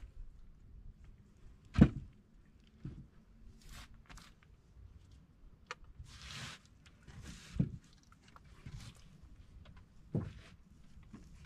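Occasional dull thumps and knocks on a wooden fishing boat, with short scuffing noises between them; the loudest thump comes about two seconds in.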